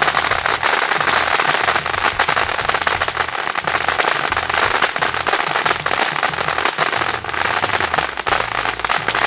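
Firework burning with a dense, continuous crackle and hiss of sparks.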